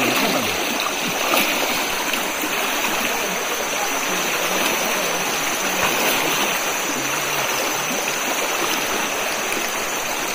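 Shallow, fast rocky river rushing steadily, with water breaking around the legs of the people wading in it.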